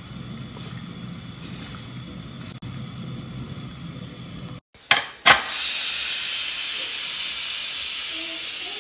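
Pressure cooker venting steam: after two sharp clicks about halfway through, a loud steady hiss of steam escaping through the lid's valve as the pressure is let off. Before it, only a low steady background noise.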